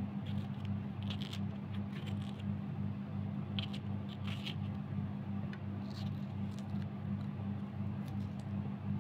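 Kitchen knife cutting a green bell pepper held in the hand: a series of short crisp snicks, irregularly spaced and bunched in the first half. A steady low hum runs underneath.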